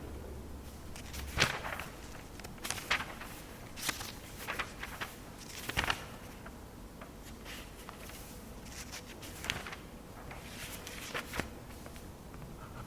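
Irregular footsteps, small knocks and rustling as people move about. A low hum stops about a second in.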